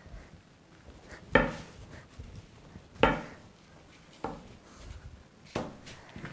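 Rolling pin working a sheet of dough on a board, knocking against the board four times, about once every second and a half.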